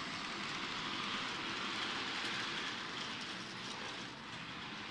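Electric model trains running along the layout's track: a steady whirring rattle of motors and small wheels on the rails, swelling slightly in the first few seconds.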